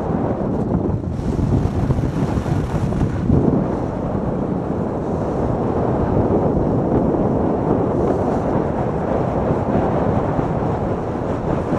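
Wind rushing over the helmet camera's microphone, mixed with the rumble of the ALS Supersport luge's runners on packed snow, as the luge slides down a groomed toboggan run at about 30 to 40 km/h. Steady throughout, with extra hiss briefly near the start.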